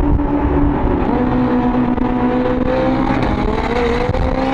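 Car engine accelerating: its pitch drops about a second in, climbs steadily, then drops again near the end, as at gear changes.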